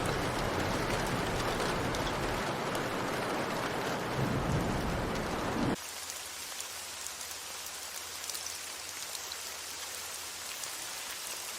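Steady rain falling, heavy for about six seconds, then cut suddenly to a lighter, thinner patter of rain.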